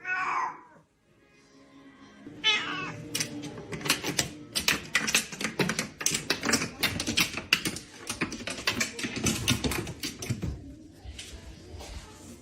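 A cat meows twice, once at the start and again about two and a half seconds in. After that comes a long run of rapid, sharp clicks lasting about seven seconds.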